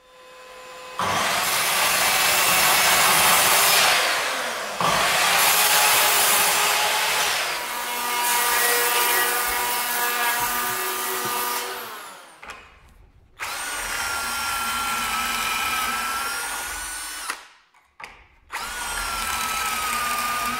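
Electric hand planer cutting spruce framing timber in two long passes, the second stopping about 12 seconds in. Then a drill boring pocket holes through a pocket-hole jig in two shorter runs, each with a steady motor whine.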